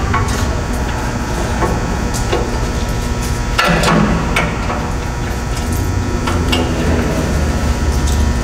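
Scattered knocks and clicks of metal parts as a cable tray and its T-nut brackets are set into the groove of the table frame. A larger clatter comes about four seconds in, over a steady low hum.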